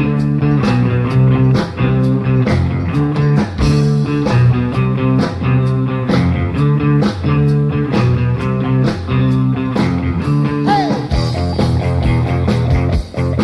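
Live rock band playing with no vocals: guitar chords over a steady, evenly spaced drum beat.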